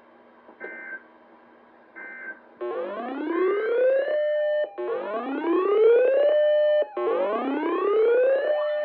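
Electronic synthesized sound: two short faint beeps, then three loud rising sweeps, each about a second and a half long.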